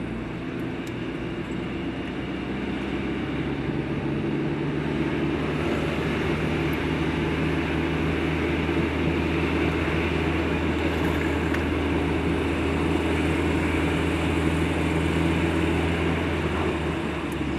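Car driving along a town street, heard from inside the cabin: a steady drone of engine and tyre noise with a low engine hum, growing a little louder over the first few seconds as the car picks up speed.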